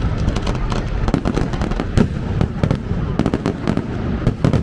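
Fireworks display going off in rapid succession: a dense, unbroken run of bangs and crackles, several a second, over a continuous low rumble.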